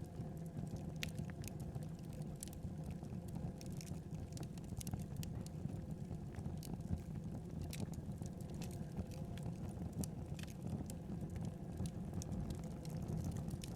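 Wood fire burning in a fireplace, crackling with irregular sharp pops and snaps over a steady low rumble of the flames.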